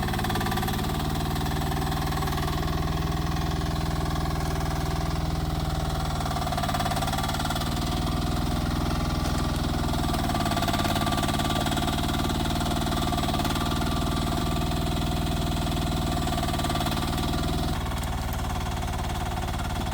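Engine of a 1-ton Rippa R10 mini excavator running steadily, its note shifting several times as it works.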